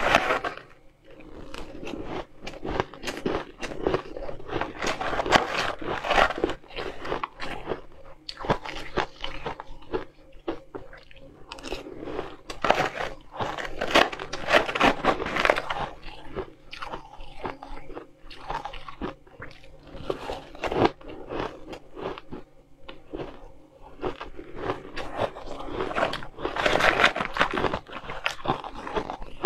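Close-up crunching and chewing of crushed ice eaten by the spoonful, in bouts of dense crackly crunches with short quieter gaps between mouthfuls.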